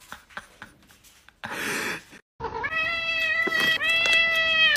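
A cat's long, drawn-out meow, rising at the start and then held steady with one short break, begging at a treat pouch being opened. Before it, a brief rushing noise.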